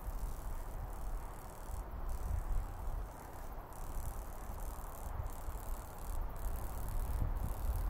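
Wind buffeting the microphone as a low, uneven rumble, over a steady rustling hiss.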